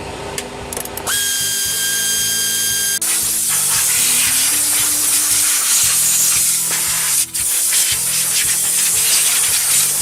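Compressed-air blow gun hissing in long blasts, blowing dirt off the top of the engine before the spark plugs come out. It starts about a second in with a whistle over the hiss, breaks briefly past seven seconds, and cuts off at the end, with background music underneath.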